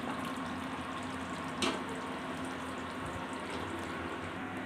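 Fish curry gravy simmering in a hot kadai just taken off the flame, a steady soft hiss. A spatula taps the pan once, about one and a half seconds in.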